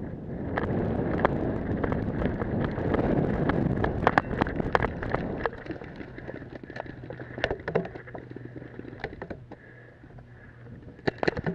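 A paintball player runs across grass with gear rattling, footfalls and wind rushing over the helmet-mounted microphone for about five and a half seconds. Then he settles behind cover, with scattered sharp clicks and a quick string of sharp pops near the end.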